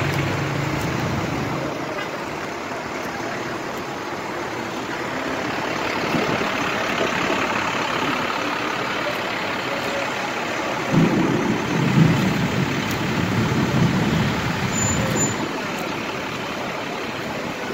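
Motor vehicles running and creeping across a wet forecourt, with a steady hiss of noise throughout. A louder, uneven low engine rumble comes in about eleven seconds in and lasts a few seconds.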